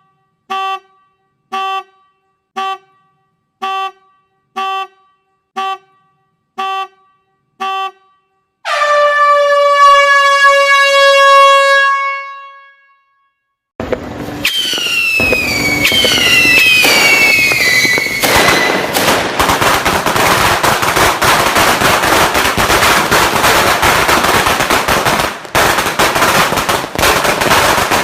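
Eight short electronic beeps about a second apart, then a long horn-like tone that fades out. After a brief pause, a sinturon ni hudas firecracker string goes off in a dense, rapid crackle, with several falling whistles early in the burst.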